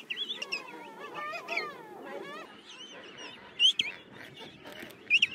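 King penguin colony calling: many birds at once, their calls overlapping and sliding up and down in pitch, with two short louder calls in the last two seconds.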